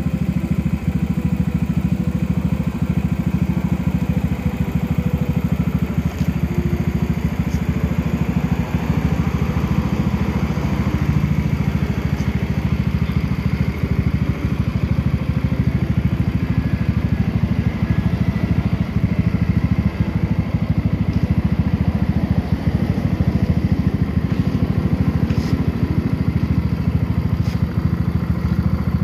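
Yamaha Mio i 125 scooter's single-cylinder engine idling steadily, with a fast even pulse.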